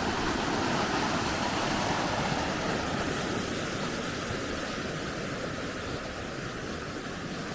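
Floodwater in a creek rushing and churning over the broken edge of a washed-out concrete drive, a steady rushing noise that grows gradually quieter.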